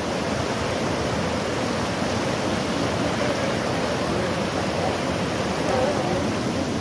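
Floodwater of a swollen river rushing steadily past, a constant, even noise.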